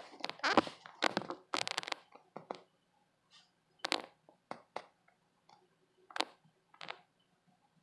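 Striped knee tarantula crunching a cricket in its fangs, heard very close: a dense run of crackling crunches over the first two and a half seconds, then single sharp clicks about a second apart.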